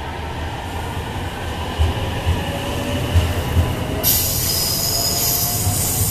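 JR West 521 series electric train pulling away, its traction motor whine rising in pitch as it gathers speed. About four seconds in, a loud high hiss sets in suddenly.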